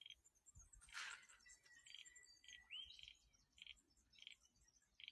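Frogs calling faintly: a run of short, rapidly pulsed high chirps repeated about every half second to second. A thin, steady whistle is held for about a second near the middle.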